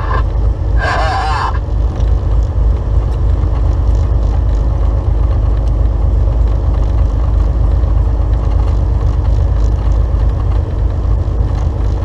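Steady low drone of a 2015 Volvo 670 semi tractor driving at highway speed, heard from inside the cab: engine and tyre noise. About a second in, a brief burst of a voice cuts in.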